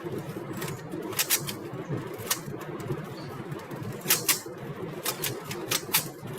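Rubik's cubes being turned fast during a speed solve: irregular sharp plastic clicks, some in quick pairs, heard over an open call microphone with a steady low background noise.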